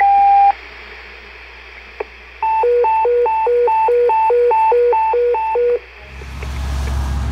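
Fire dispatch tones over a scanner radio: the last steady tone of a two-tone page cuts off about half a second in. About two seconds later a fast high-low alert tone alternates for about three seconds. From about six seconds, passing fire-engine and road noise rises.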